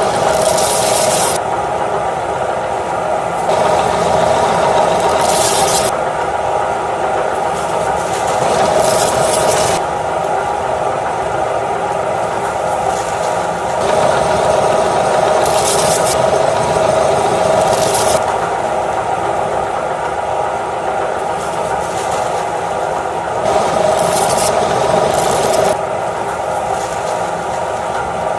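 Electric meat grinder running steadily, with repeated bursts of crunching and scraping as dry potato stick chips are fed through and crushed by the auger.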